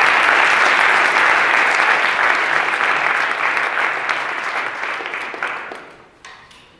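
Audience applauding, dying away about a second before the end.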